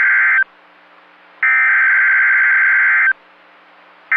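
Emergency Alert System SAME header data bursts on NOAA Weather Radio: harsh, buzzy digital screeches, each about a second and a half long, with a second of faint hum between them. One burst ends just after the start, a full burst plays about a second and a half in, and the third begins right at the end. This repeated header encodes and announces the incoming AMBER Alert.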